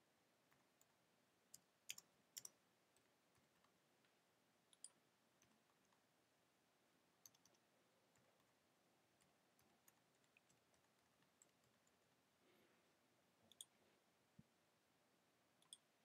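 Near silence with a few faint, scattered clicks of computer keyboard keys and a mouse as answers are typed into a form and submitted.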